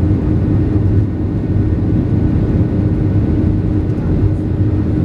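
Boeing 737-800 cabin noise at a window seat over the wing while the airliner taxis. Its CFM56-7B jet engines give a steady hum with a constant tone over a low rumble.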